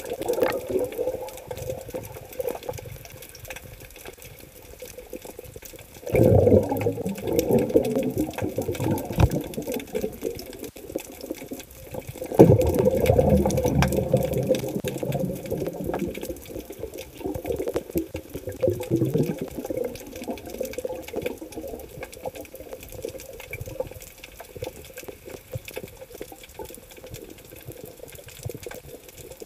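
Muffled water noise picked up underwater, with two louder surges of churning water about six and twelve seconds in.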